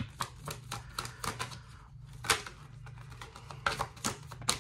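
Tarot deck being shuffled by hand: a quick, irregular run of sharp card clicks and slaps, the loudest about two seconds in and near the end, over a steady low hum.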